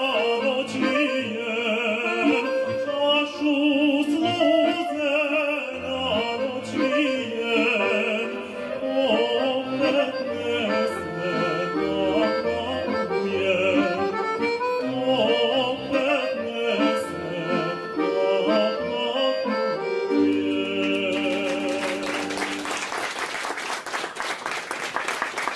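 A male voice sings a traditional Serbian folk song with a wavering, vibrato-laden line over accordion accompaniment. About twenty seconds in the song ends on a held accordion chord, and applause breaks out and continues to the end.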